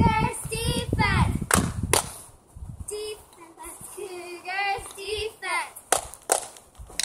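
Girls chanting a cheer, with sharp hand claps between the chanted lines.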